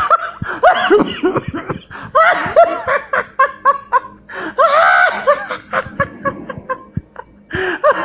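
A man laughing hard and uncontrollably in loud, high-pitched runs of quick bursts, pausing briefly for breath about seven seconds in.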